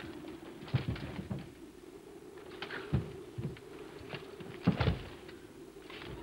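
Scuffling, knocks and thumps of a staged sword fight between two men in costume armour, with a few sharper clanks; the loudest comes about three-quarters of the way through. A steady low hum runs underneath.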